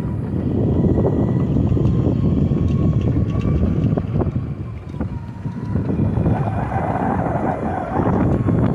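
Wind buffeting the microphone: a steady low rumble that eases for a second or so about halfway through, then comes back as strong.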